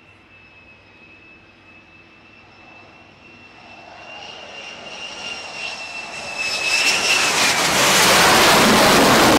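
Fighter jet's engine approaching a carrier deck to land: a steady high whine that grows louder into a loud rush as the jet arrives, with the whine dipping slightly in pitch as it passes, then cutting off suddenly.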